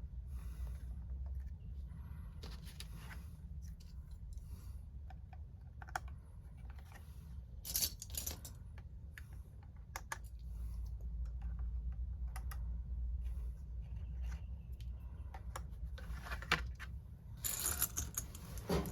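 Scattered light clicks, taps and short scrapes of small hard objects being handled, over a steady low hum, with a louder rustling scrape near the end.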